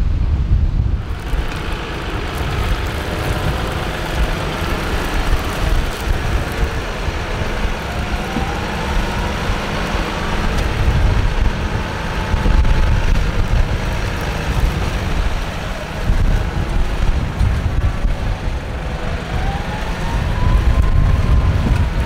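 Tractor engine running under load while ploughing. Its pitch rises and falls twice, with heavy wind buffeting the microphone throughout.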